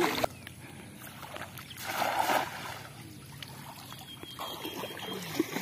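A cast net landing on shallow water, a short splash about two seconds in, against a low sloshing of water.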